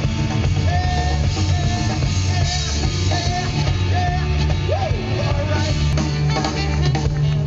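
Live blues-rock band playing, a lead line with bent, wavering notes over bass and drums.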